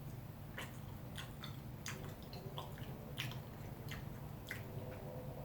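A person chewing a mouthful of pizza: a quiet, irregular scatter of short wet clicks and smacks, roughly two a second.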